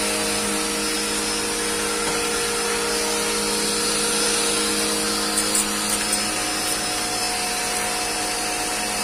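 An electric cleaning machine running steadily: a motor hum under a constant loud hiss, with a few short clicks about five and a half seconds in.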